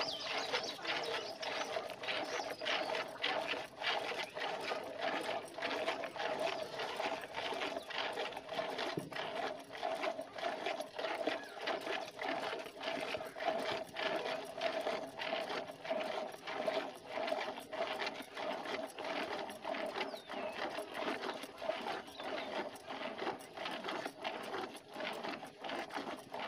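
A cow being milked by hand into a steel bucket: rhythmic squirts of milk hitting the pail, about two a second, as the hands alternate on the teats.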